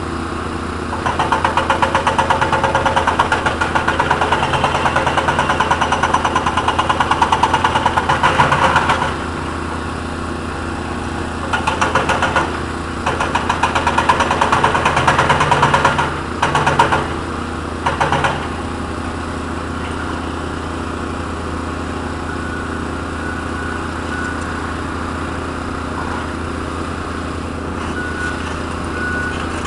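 Cat 320 excavator's diesel engine running steadily while its hydraulic breaker hammer pounds in rapid strokes: one long run from about a second in to about nine seconds, then several shorter runs between about twelve and eighteen seconds.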